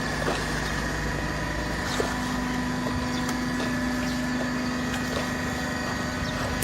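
Hydraulic baling press running, its electric motor and hydraulic pump giving a steady hum with a high whine, and a few faint clicks. The low note of the hum steps up in pitch about two seconds in.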